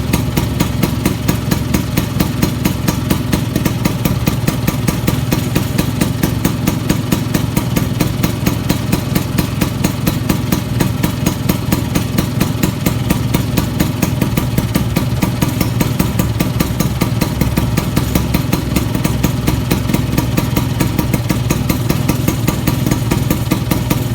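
Vespa Sprint scooter engine idling through a big-box aftermarket exhaust, a steady, even pulsing note that holds the same pitch throughout with no revving.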